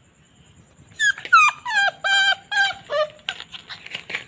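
A small dog whining: about five high whines in quick succession, each sliding down in pitch, the later ones held lower and steadier. They are followed near the end by a run of short clicks and rattles.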